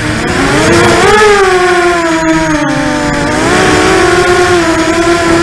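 Vortex 250 Pro racing quadcopter's brushless motors and propellers whining in fast flight, the pitch rising about a second in, sinking, then rising again past the middle as the throttle changes.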